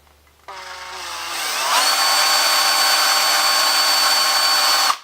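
Electric drill switched on, its motor whine rising in pitch as it spins up, then running steadily at full speed before it is released and stops just before the end.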